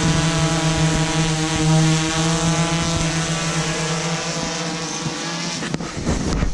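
DJI Inspire 1 quadcopter's four electric rotors whining steadily in flight, growing somewhat quieter as the drone moves away. A few knocks near the end.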